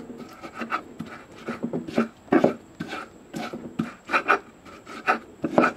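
Stone pestle pounding sliced fresh spices (turmeric, ginger, shallots, garlic, chilli) in a shallow stone mortar to make a spice paste. The strikes are dull, irregular thuds, about two to three a second, with a wet crushing sound between them.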